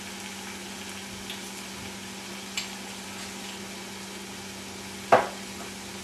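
Diced vegetables frying gently in oil in a stainless steel pot, a steady sizzle with a constant low hum under it. A couple of faint clicks, and one short sharp knock about five seconds in.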